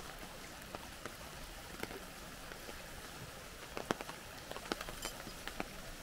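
Falling snow in a snowstorm: a steady hiss with scattered light ticks of snow striking nearby surfaces, the loudest about four seconds in.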